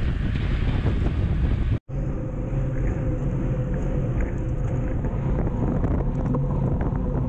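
Wind buffeting a handlebar-mounted action camera's microphone, with mountain-bike tyres rolling on asphalt, as the bike rides along at speed. The sound drops out for an instant at an edit cut about two seconds in, then goes on with a steady hum.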